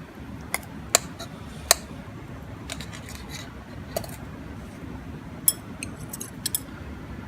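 Scattered sharp clinks and taps of a utensil against cookware and dishes while cooked rice is dished up, about a dozen in all, the loudest about one and two seconds in and a quick run near the end. A steady low wind rumble lies underneath.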